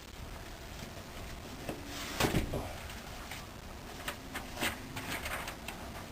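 Scattered light clicks and knocks, the loudest about two seconds in.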